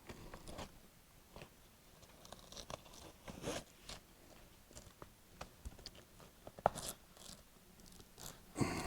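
Scattered clicks, rustles and scrapes as the straps and buckles of a motorcycle sissy bar bag are handled and adjusted, the loudest just before the end.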